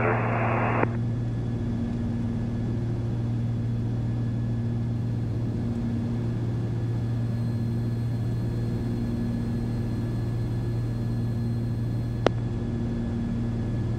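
Twin turbocharged Continental six-cylinder engines of a Cessna 340 running in cruise, heard as a steady drone inside the cabin, with a slow rise and fall every few seconds. A single sharp click comes about twelve seconds in.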